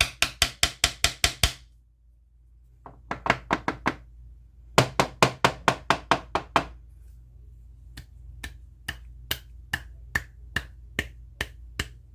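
Brass-bolstered Buck lockback folding knife being knocked against a hard surface to shake grit and polishing residue out of its handle: rapid bursts of sharp knocks, about six a second, then slower, lighter clicks a few times a second.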